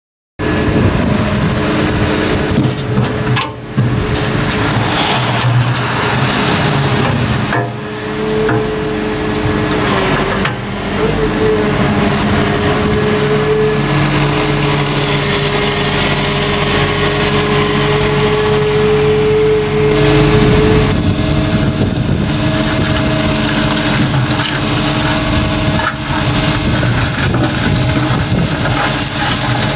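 Wheeled excavator working: the diesel engine runs steadily under load with a held hydraulic whine that shifts to a higher pitch about two-thirds of the way through. The sound cuts in abruptly just after the start and breaks off briefly a few times.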